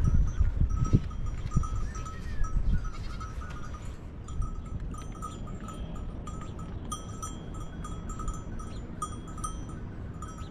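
Ambient sound of a grazing flock of sheep and goats, with a short high note repeating steadily throughout. There are low rumbles and a few thumps in the first three seconds.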